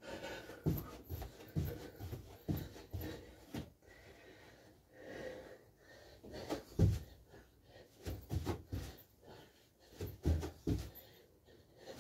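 A man's hard breathing during a bodyweight workout, with feet thudding on a carpeted floor: about two thuds a second in the first few seconds, then fewer, heavier thuds as he drops to the floor and kicks his legs out.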